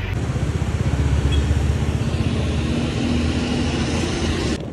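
Motor vehicle engine running close by with road noise: a deep, rapidly pulsing rumble, loudest about a second or two in.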